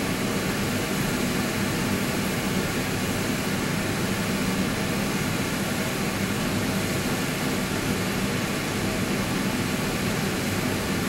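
Steady mechanical drone with a low hum and an even hiss, unchanging throughout.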